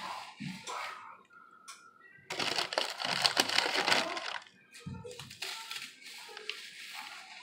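Ritz crackers being crushed by hand, the crumbs falling into a plastic mixing bowl, in short crackly bursts. About two seconds in comes a longer, louder stretch of crunching and crinkling lasting nearly two seconds, as a fresh handful is taken from the plastic cracker sleeve.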